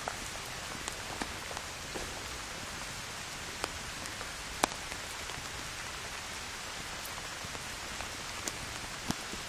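Steady rain falling, an even hiss with scattered sharp drop hits, one clearly louder a little under halfway through.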